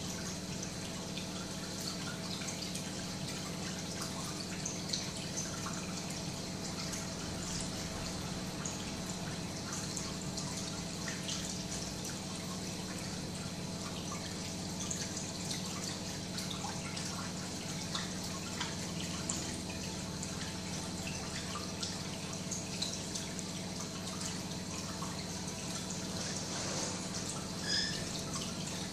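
Reef aquarium water trickling and dripping steadily with small scattered splashes, over a steady low hum.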